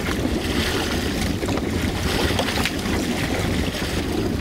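Wind buffeting the microphone with water rushing along the hull of a dragon boat under paddle, and irregular splashes of paddles striking the water.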